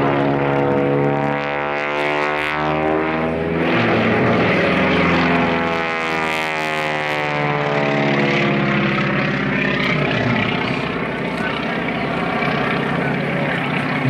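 Aerobatic propeller biplane's engine droning steadily overhead, its tone sweeping up and down as the plane loops, climbs and dives.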